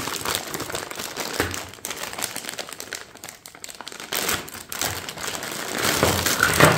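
Clear plastic bag of cables and connectors crinkling as it is handled and opened, with the louder rustle and clatter near the end as the wiring looms are tipped out onto a wooden table.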